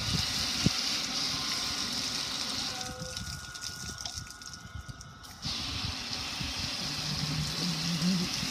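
A jet of water spraying onto a metal gas grill, a steady hiss of spray and splashing water. The spray cuts out about three seconds in and starts again about two and a half seconds later.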